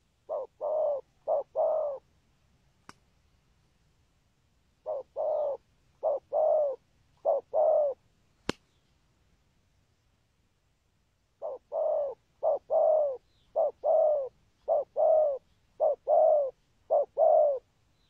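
Spotted dove cooing in pairs of notes, a short coo then a longer one. It calls in three runs: two pairs, then three pairs, then a longer run of about six pairs near the end. A single sharp click sounds between the second and third runs.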